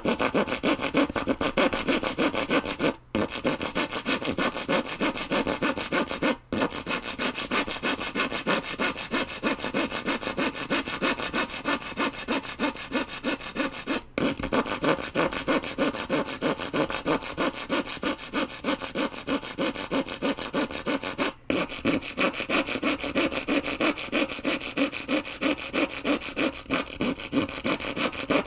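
Hacksaw cutting through wood in steady, rapid back-and-forth strokes, pausing briefly four times.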